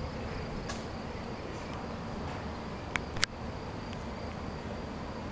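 Steady outdoor background noise with a faint high buzz, broken by two sharp clicks about three seconds in.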